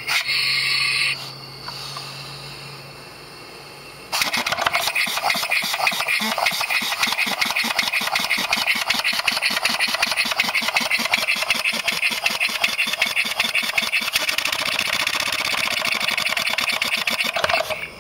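Briggs & Stratton single-cylinder engine converted to run on compressed air. A short hiss of air comes at the start. About four seconds in the engine starts running with a rapid, even chuffing of air exhaust, and it stops abruptly near the end.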